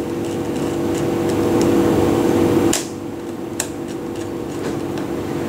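Plastic clicks as a part is pulled from a Weidmüller CT terminal block on a DIN rail: a sharp click about halfway through and a lighter one about a second later, with a few faint ticks. A steady hum runs underneath and drops in level at the first click.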